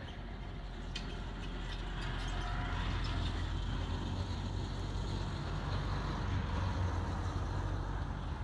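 A motor vehicle's engine running on the road, a steady low rumble that grows louder over the first few seconds and then holds.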